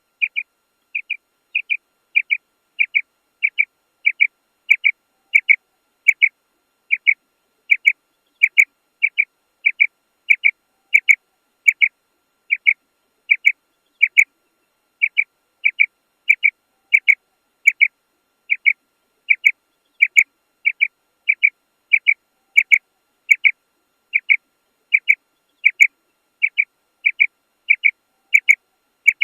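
Female quail call, a short sharp note repeated steadily about one and a half times a second without a break, the recorded call played as a lure to draw quail.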